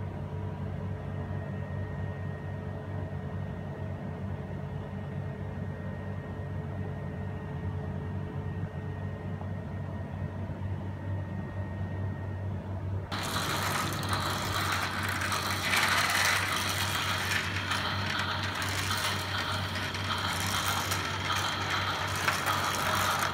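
Small battery-powered plastic toy trains on plastic track: a steady low hum for the first half, then suddenly, about halfway through, a much louder, dense rattling clatter of small plastic gears and wheels.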